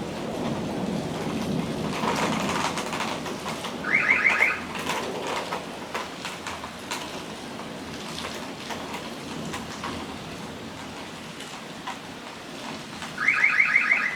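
Steady rain in a thunderstorm, with a low thunder rumble over the first few seconds that then dies away. Twice, about four seconds in and again near the end, a short electronic chirp of five quick rising notes cuts through, louder than the rain.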